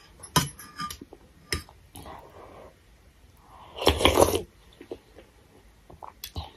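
Noodle soup being eaten with a metal spoon from a steel bowl: a few light clinks of the spoon against the bowl, then a loud slurp of broth from the spoon about four seconds in.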